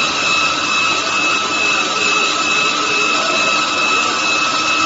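Stone-cutting machine's diamond blade cutting a wet stone block under water spray: a steady grinding noise with a constant high whine.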